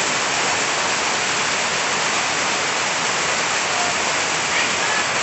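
Rain falling steadily on forest trees and broad leaves, an even, unbroken hiss with no let-up.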